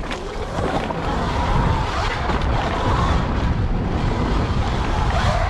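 Wind buffeting the microphone: a loud, steady rumbling rush that builds over about the first second.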